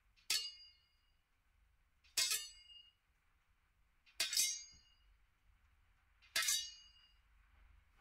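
AI-generated (ElevenLabs text-to-sound) samurai sword-clash effect: four ringing metal-on-metal clashes about two seconds apart, each dying away quickly.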